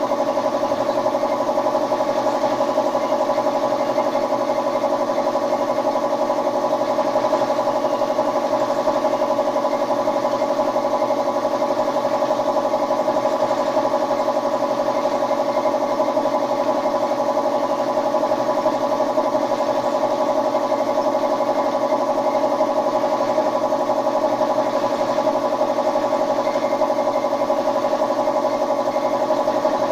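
Air compressor running steadily for the spray gun: a constant, unchanging machine hum with a fainter hiss above it.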